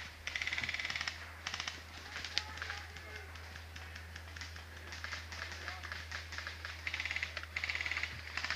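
Airsoft rifles firing in rapid full-auto bursts, a dry fast clicking. There is a burst of about a second at the start, scattered single shots in the middle, and two more bursts near the end.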